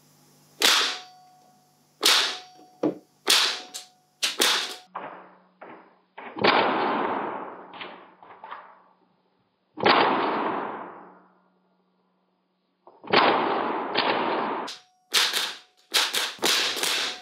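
Northeast FAMAS F1 gas-blowback airsoft rifle firing, really loud with a metallic clatter. A handful of single shots about a second apart come first, then three longer bursts of a second or two each, and a fast string of shots near the end as the magazine runs empty.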